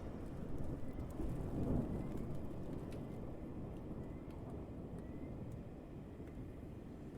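Thunder rumbling on after a clap and slowly dying away.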